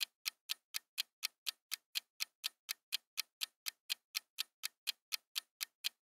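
Countdown-timer ticking sound effect: evenly spaced sharp ticks, about four a second, marking the time left to answer.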